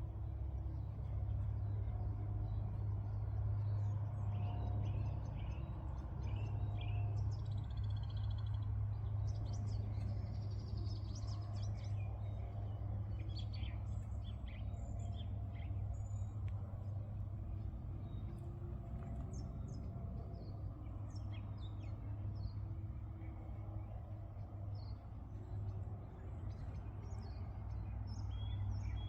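Birds chirping in short, scattered calls, on and off throughout, over a steady low background rumble.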